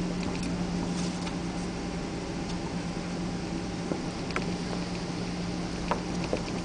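Cabin noise inside a Boeing 777-300 rolling along the runway after landing: a steady engine and airflow hum with a held low drone, and a few light clicks and rattles from the cabin.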